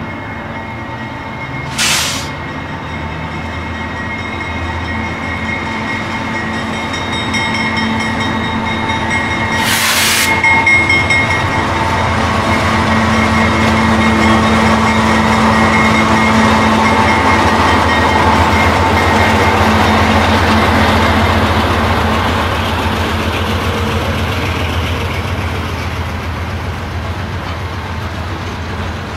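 GE C44-9W diesel locomotive with its V16 engine running as it rolls past close by at low speed, growing loudest as it passes, then freight cars rumbling by behind it. Two short bursts of hiss come about 2 and 10 seconds in.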